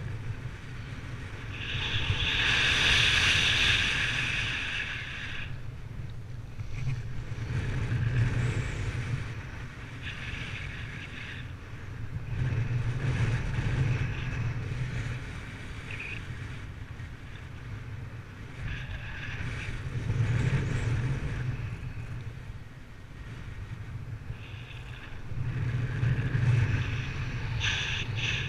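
Wind rushing and buffeting over the microphone in flight, swelling and fading in gusts every few seconds, with the strongest gust about three seconds in.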